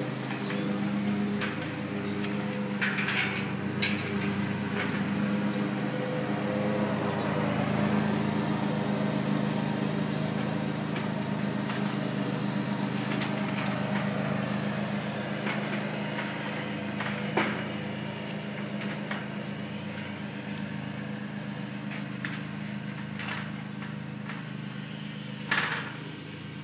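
A steady mechanical hum of a running motor, made of several fixed pitches, with a few sharp knocks scattered through it, the loudest near the end.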